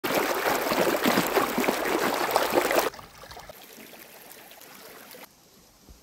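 Small stream rushing down a narrow earthen channel, loud for about three seconds, then cut off abruptly to a much quieter background hiss.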